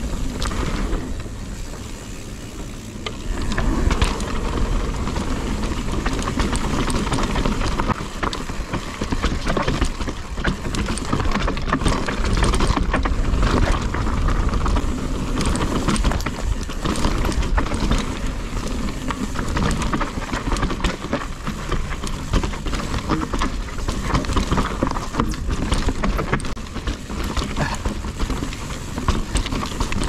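Nukeproof Mega 290 downhill mountain bike riding fast down a dirt trail: tyres rolling over dirt and rocks, with constant rattling and clicking from the chain and frame over bumps, under a steady low rumble.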